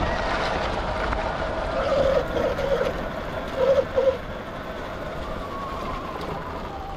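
Sur-Ron X electric dirt bike riding along: the electric motor's steady whine over tyre and wind noise, with a higher whine easing down in pitch over the last couple of seconds as the bike slows.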